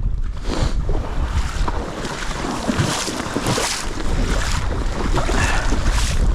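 Strong wind gusting over the microphone, with water lapping and splashing.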